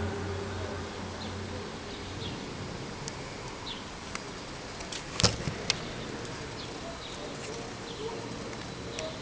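Outdoor background hiss with scattered short, high chirps and two sharp clicks a little past the middle. A low hum fades out at the start.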